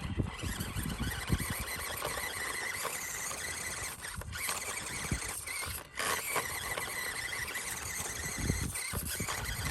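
Small RC rock crawler's electric motor and gearbox whining steadily while it crawls, with scraping and crunching from the tires working over the ground.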